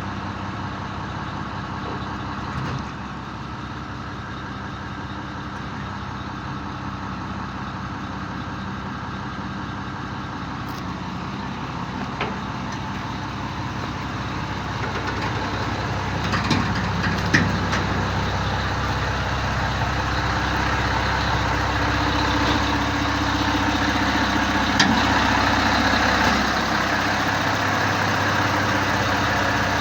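Mobile crane's engine running steadily under hydraulic load while the outriggers level the machine, growing louder in the second half, with a few light knocks.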